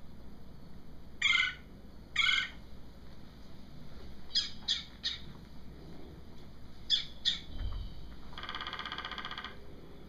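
Recorded red-bellied woodpecker calls played through classroom speakers: two calls about a second apart, then two groups of shorter calls, and near the end a rapid trill lasting about a second.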